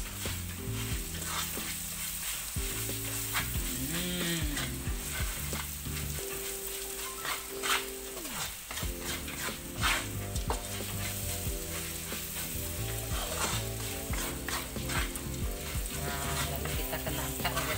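Small dried fish, sliced ginger and black pepper sizzling in oil in a wok, with a wooden spatula stirring and scraping against the pan again and again.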